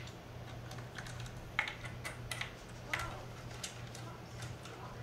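Hands taking apart a RED Epic-MX cinema camera body: irregular small clicks and knocks of its metal parts being handled, the sharpest between about one and a half and three seconds in, over a low steady hum.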